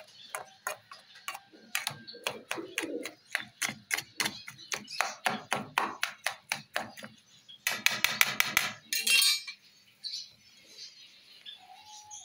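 Metal potato masher repeatedly striking and scraping a steel plate while mashing soaked roti: a long run of short clinks a few per second, coming fastest about eight seconds in, then quieter near the end.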